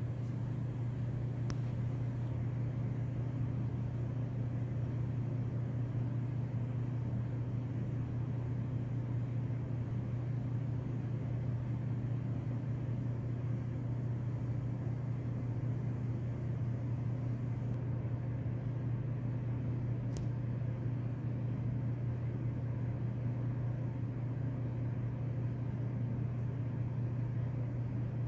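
A steady low hum, unchanging throughout, with a faint tick about a second and a half in and another around twenty seconds in.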